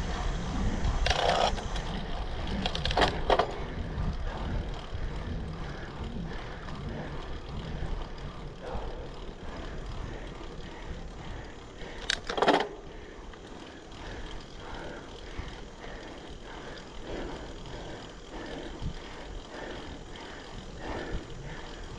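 A gravel bike rolling along city streets: steady tyre rumble and wind noise, broken by a few sharp rattling clacks, the loudest about twelve seconds in.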